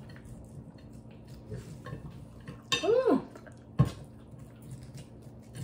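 Cutlery clicking and scraping on plates at a meal, with one sharp clink a little before four seconds in. About three seconds in there is a short vocal sound that rises and falls in pitch.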